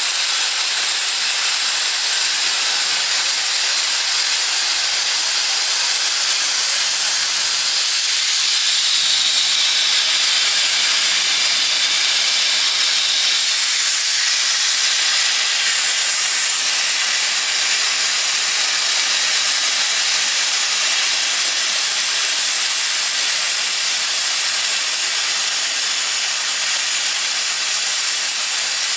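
Plasma torch of a home-made CNC plasma cutter cutting, giving a loud, even hiss that holds steady throughout.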